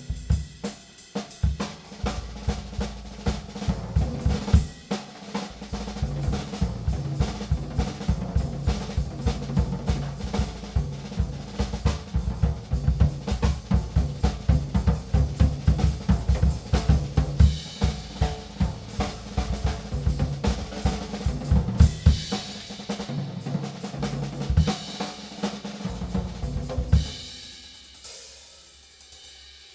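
Gretsch Name Band drum kit played as a groove with fills: bass drum, snare, hi-hat and cymbals. The cymbals grow brighter in the second half, and about three seconds before the end the playing stops, leaving the kit ringing out.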